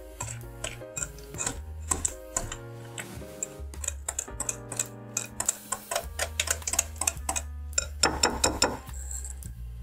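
Wire whisk beating cream cheese and sugar in a glass bowl: quick clicking and ticking of the wires against the glass, densest and loudest near the end, over background music.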